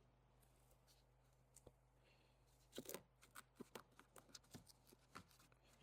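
Near silence, with a scatter of faint short clicks and taps from about three seconds in, as parts are handled inside the door.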